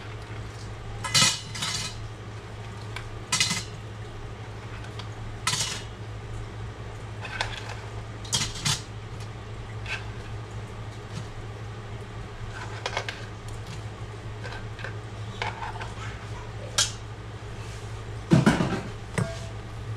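Crabs being put one at a time into a stainless steel steamer basket, their hard shells clinking against the metal at irregular intervals, with a louder clatter near the end. A steady low hum runs underneath.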